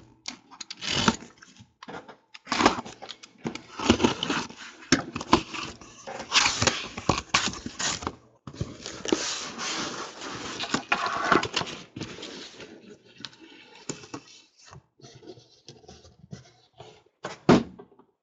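A utility knife slits the packing tape on a cardboard case. The cardboard is then pulled open and lifted off, with irregular scraping, rustling and knocks that thin out in the last few seconds.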